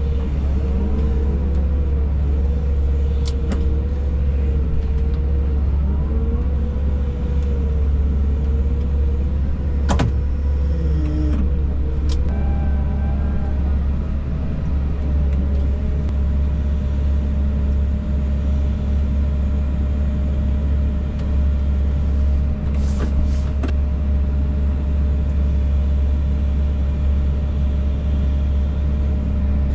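Heavy vehicle engine running steadily with a deep, constant hum. For roughly the first twelve seconds a whine wavers up and down over it, then settles into a steady tone, with a few sharp clicks along the way.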